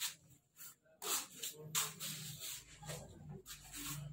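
Plastic bags rustling and crinkling in short bursts as they are handled. A low steady hum comes in about halfway through.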